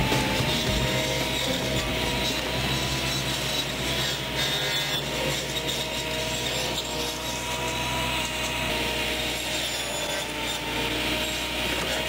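Tractor-mounted reach-arm hedge cutter running, its rotating cutting head chewing through scrub and small tree branches, with a steady whine over the cutting noise.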